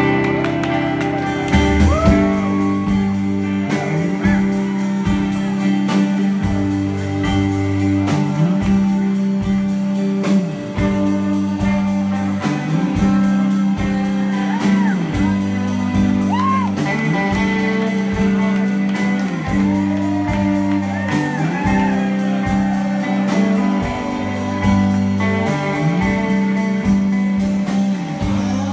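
Live rock band playing: electric guitars over a steady bass line and drums keeping an even beat.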